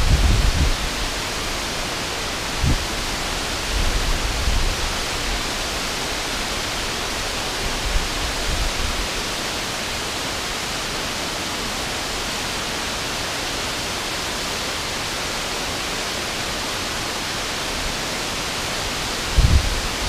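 Waterfall spilling over a low dam onto rocks, a steady rushing hiss of falling water. Brief low rumbles come through near the start and again near the end.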